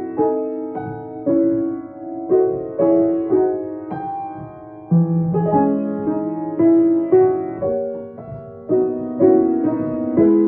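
Grand piano being played: a moderate-paced passage of struck notes and chords, each attack fading before the next.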